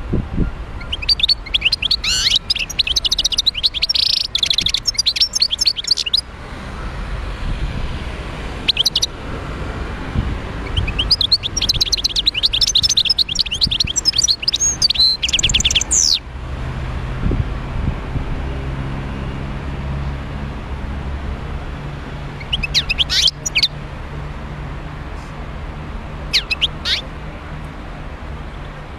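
Wild-caught European goldfinch singing: two long bursts of quick, twittering song of about five seconds each, then two brief snatches near the end.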